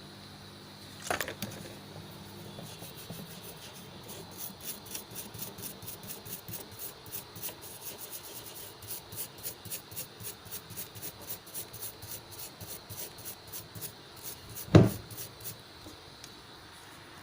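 Quick, regular scraping or rubbing strokes, about four a second, with a sharp click about a second in and a loud knock near the end.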